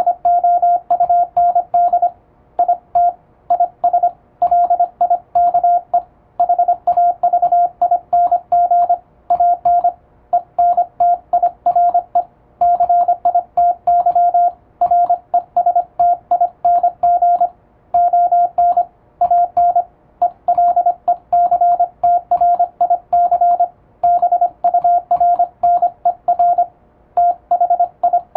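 Morse code sent with an electronic keyer (elekey): a steady tone of about 700 Hz switched rapidly on and off in dots and dashes, with short pauses between words. It is international Morse carrying English-language text.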